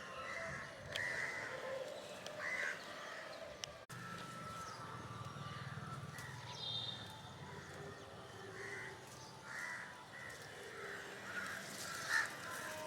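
Crows cawing again and again, short calls about a second apart.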